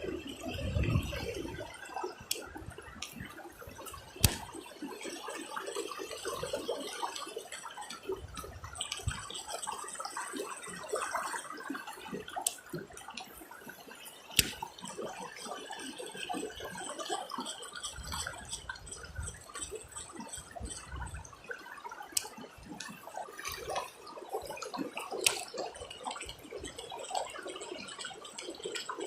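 Fast-flowing river water running steadily, with a few sharp clicks now and then.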